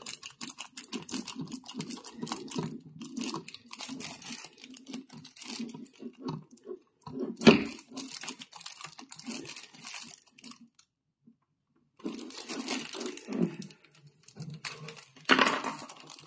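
Crinkling and tearing as fingers pick at sticky tape wound tightly round a speaker cable, with plastic wrapping being handled. There is a loud knock about seven and a half seconds in and a short pause near the middle.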